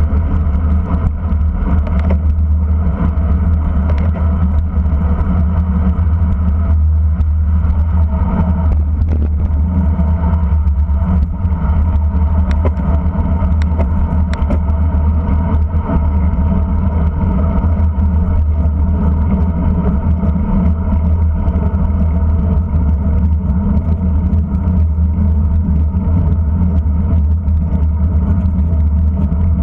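Steady wind buffeting and road rumble on a bicycle-mounted camera at racing speed: a loud, deep, unbroken rumble with a constant hum above it.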